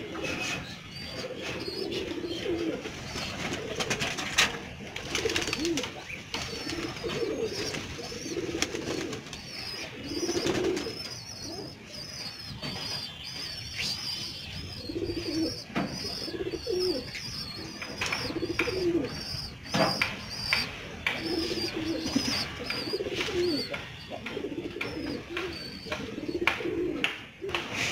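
A flock of domestic pigeons cooing over and over in low warbling calls, with frequent short sharp taps and a thin high chirping in the background.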